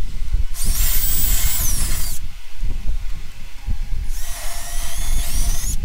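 DeWalt cordless drill spinning a small flap wheel against the edge of a freshly hole-sawn hole in a sheet-metal panel, run twice for about a second and a half each time. Its high whine drops in pitch as each run stops.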